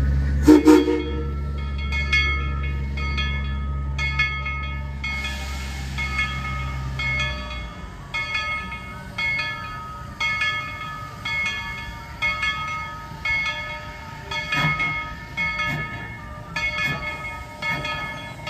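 Bell of the 1943 Baldwin steam locomotive No. 190 ringing in a steady rhythm, about one and a half strokes a second, with a brief whistle toot near the start. A low rumble underneath stops about seven seconds in.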